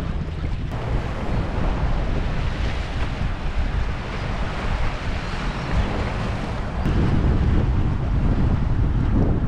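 Wind buffeting the microphone over the steady wash of waves, gusting harder about seven seconds in.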